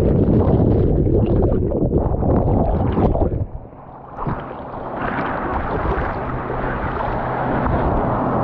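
Ocean surf sloshing and churning around a camera held at the waterline, with wind buffeting the microphone. The sound drops away briefly about three and a half seconds in, then a brighter hiss of washing foam builds.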